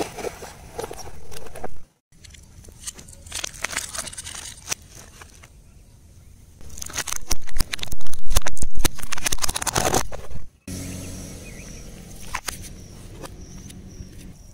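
A car tyre rolls over paper cups, crumpling them with a crackle. After a cut it rolls over a plastic toy, which snaps and cracks in a loud run of sharp cracks about halfway through. Near the end a low steady hum runs under a few faint crackles.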